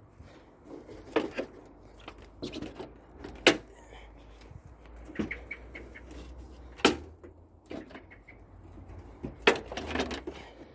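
Irregular sharp knocks and clatter from a tumble dryer being taken apart by hand, with about half a dozen separate hits, the loudest about three and a half and nine and a half seconds in.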